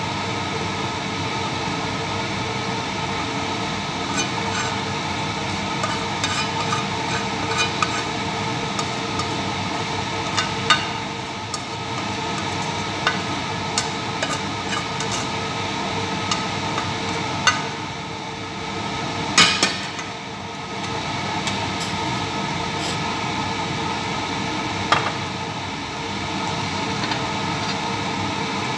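A utensil scraping and tapping against a stainless steel frying pan as cooked chicken pieces are emptied into a bowl, many light clicks with a louder clatter about two-thirds of the way in, over a steady hiss.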